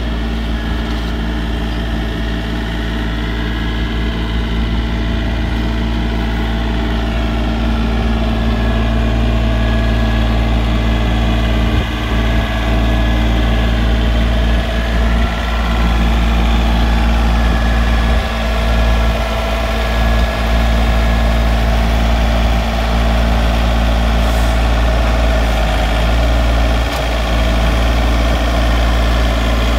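John Deere compact utility tractor's diesel engine running steadily as the front loader carries a barrel of dirt, getting a little louder as the tractor comes closer.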